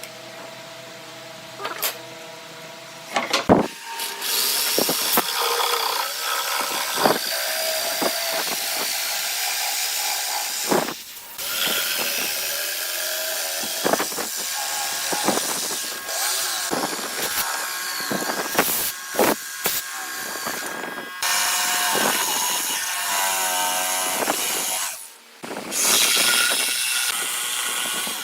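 Power tool running against wood, starting about three and a half seconds in, with sharp knocks and a few brief breaks where it stops and starts again.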